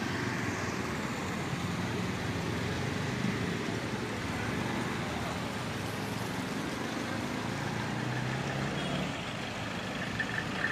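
Slow road traffic passing close by: car and motor scooter engines running with a steady low hum and tyre noise on a wet road.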